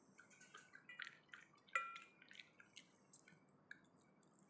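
Dog chewing and licking chicken from a hand: faint, wet smacking clicks at an uneven pace, the sharpest one a little under two seconds in.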